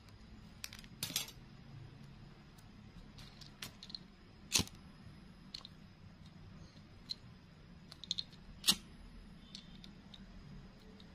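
Scattered small clicks and rustles of plastic-bag strips and a small tool being handled. Two sharper clicks stand out, about four and a half and about eight and a half seconds in.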